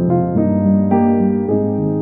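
Background piano music: a gentle electric-piano melody over chords, with new notes about every half second.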